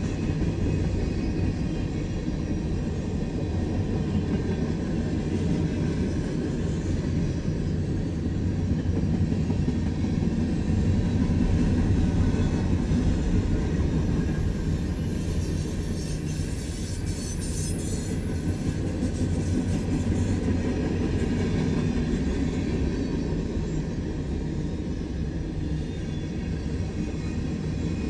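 Freight cars of a CSX manifest train, tank cars and covered hoppers, rolling past on the rails in a steady rumble. A brief high-pitched squeal comes a little past the middle.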